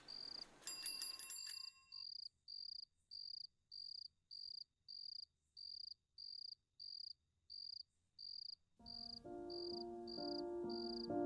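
Crickets chirping steadily at night, about two to three chirps a second. Around the first second a bicycle bell rings in several quick dings, and near the end soft background music comes in.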